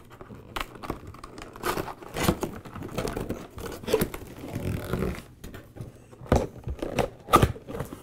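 Corrugated cardboard rubbing and scraping as the locking tab of a cardboard box is worked loose, with sharper snaps of the card near the end.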